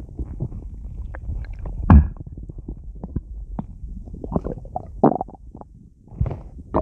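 A person's stomach gurgling and growling, bloated with soda: a run of small bubbly pops and gurgles, with a louder gurgle about two seconds in and more near the end.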